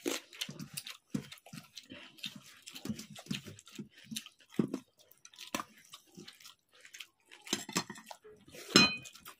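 Close-up eating sounds of watery fermented rice (panta bhat) eaten by hand: irregular wet chewing, smacking and slurping, with one louder short sound near the end.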